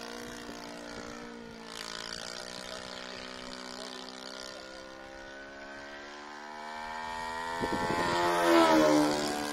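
Radio-controlled model airplane engine and propeller running steadily in flight. It grows louder towards a peak about eight and a half seconds in as the plane comes close, and its pitch falls just after the peak.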